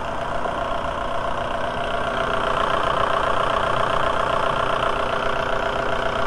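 Volkswagen 1.9 L ALH TDI four-cylinder turbodiesel idling steadily as it warms up, the new thermostat not yet open.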